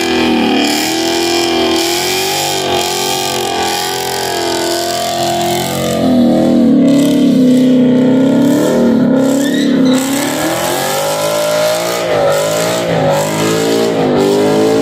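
Car engine revving hard during a burnout, its pitch rising and falling as the throttle is worked, over the hiss of the spinning rear tyres. It gets louder from about six seconds in.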